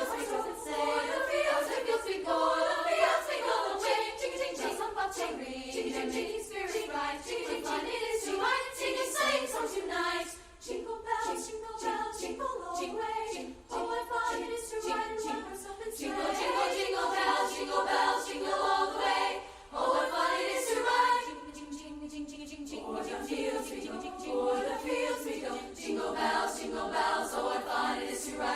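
A cappella choir of student voices singing.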